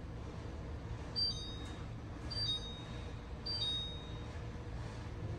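An electronic beeper sounds three times about a second apart, each a short high note dropping to a slightly lower one, over a faint low steady hum.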